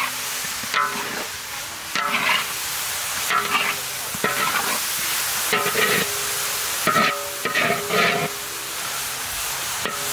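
Metal spatula scraping and knocking around a large iron wok as fish pieces with chopped herbs are stir-fried, over a steady sizzle. The strokes come about once a second, each making the wok ring briefly.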